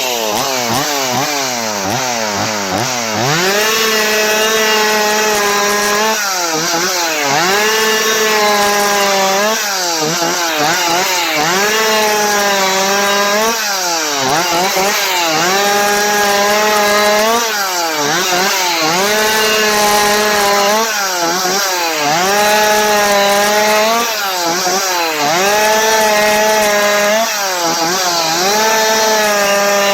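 Stihl two-stroke chainsaw blipped up and down for the first few seconds, then held at high revs and sawing wood, its engine pitch sagging and recovering every three to four seconds as the chain bites into the cut.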